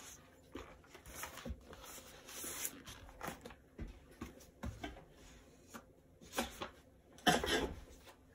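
Paper being handled and pages turned: scattered rustles, light clicks and scrapes, with one louder rustle about seven seconds in.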